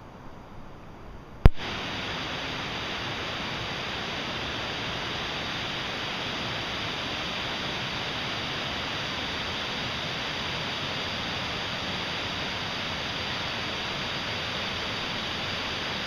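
A sharp click about a second and a half in, after which a steady, even rush of flowing water carries on unchanged.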